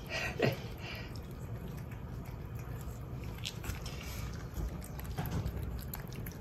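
Cats licking a Churu paste treat from a squeeze tube, with small wet smacking and clicking sounds, and one brief louder sound about half a second in.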